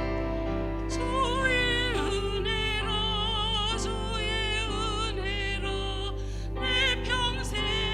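A woman singing a sacred solo with wide vibrato, coming in about a second in over sustained instrumental accompaniment.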